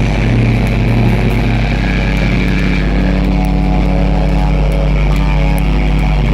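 Live heavy rock band playing loud: distorted electric guitars and bass holding long low chords over drums, with cymbal hits.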